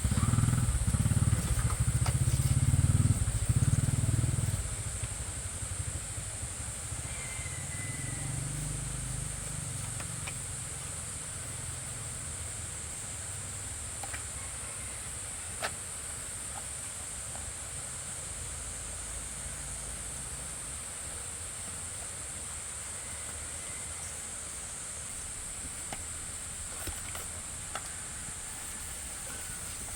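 An engine running, loud for the first four or five seconds and then settling to a quieter, steady low rumble under a constant high hiss, with one sharp click about halfway through.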